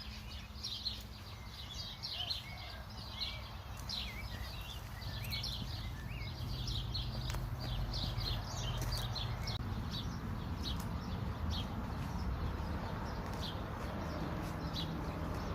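Small birds chirping and twittering in quick, repeated high notes, busiest in the first half and thinning out later, over a low, steady background rumble that grows louder about halfway through.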